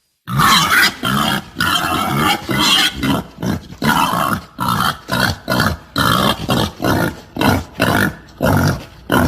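Pig grunting in a rapid run of short, loud calls, about two a second, starting after a brief silence.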